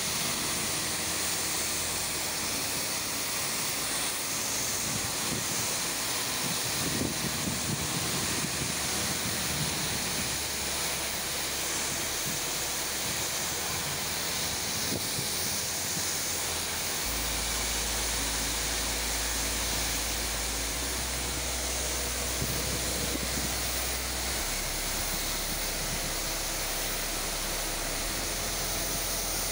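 Pressure washer spraying a wet paved floor: a steady, even hiss of the high-pressure water jet.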